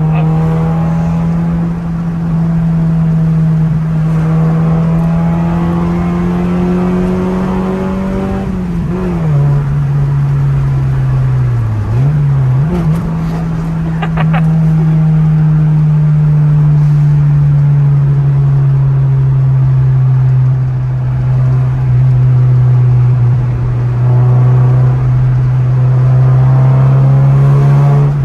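Car engine and road noise heard from inside the cabin: a steady engine drone that climbs slowly, drops away and dips in pitch about a third of the way in, with a few clicks, then settles lower and rises again near the end.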